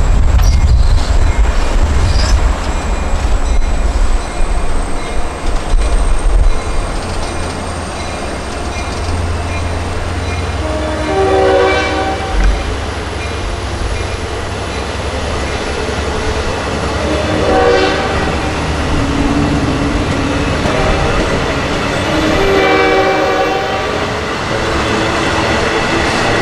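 A diesel-hauled LIRR passenger train with a DM30AC locomotive. The diesel engine rumbles heavily for the first several seconds. The horn then sounds three times, about 11, 17 and 23 seconds in, while a thin high whine rises slowly.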